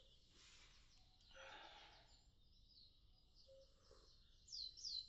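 Faint birdsong: high chirping notes, with a quick run of descending notes near the end.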